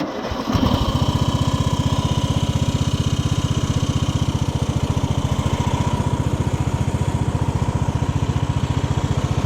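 17 hp Briggs & Stratton engine of a Craftsman LT1000 riding mower, converted to a mud mower, running steadily under way, after an abrupt start and a rise in level in the first half second.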